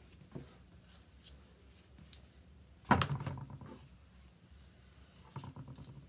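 Light handling sounds of craft transfer sheets being sorted on a table, with one sudden knock about three seconds in.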